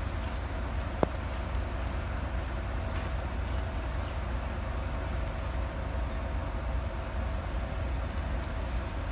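MaK G 1206 diesel-hydraulic locomotive idling at a standstill: a steady low rumble with a faint steady hum above it. A single sharp click about a second in.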